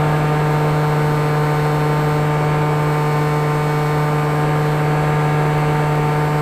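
FPV drone's electric motors and propellers running at a steady pitch, a constant hum with a noise of rushing air.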